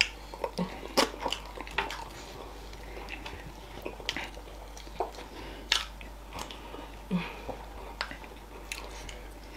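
Mouth sounds of eating fufu with okra soup by hand: chewing with irregular sharp wet smacks and clicks.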